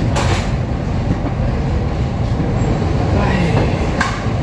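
Steady low rumble of room ventilation and extraction fans, with a sharp knock just after the start and another about four seconds in.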